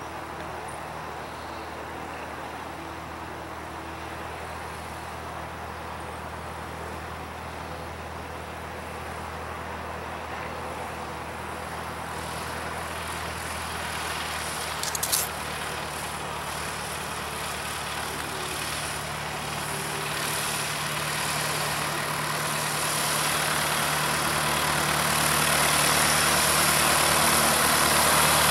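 Cessna 152's four-cylinder Lycoming engine running at low taxi power, its propeller turning, growing steadily louder as the plane taxis closer. A brief sharp click about halfway through.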